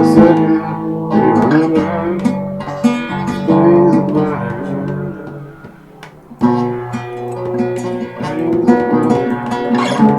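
Acoustic guitar strummed and picked in chords, with no singing. The playing thins out and goes quiet about five seconds in, then comes back full at about six and a half seconds.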